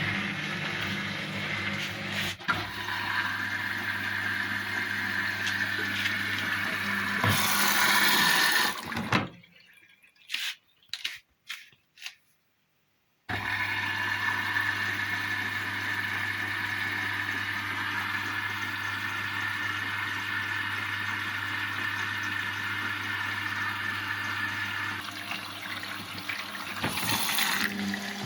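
Indesit IWC71252 washing machine filling with water at the start of a wash cycle: a steady rush of water with a steady hum. It drops out for about four seconds in the middle, then resumes.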